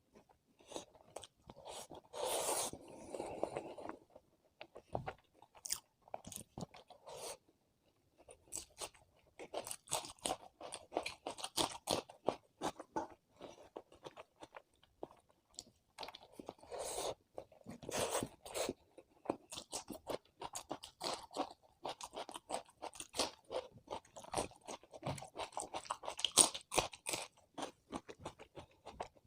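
A person eating close to the microphone: steady, irregular chewing and crunching of food, with louder bursts of bites now and then.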